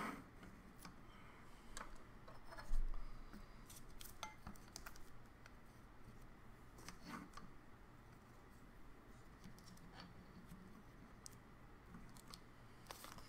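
Hard plastic magnetic card cases being handled and set down on a table: scattered light clicks and taps, with one heavier thump about three seconds in.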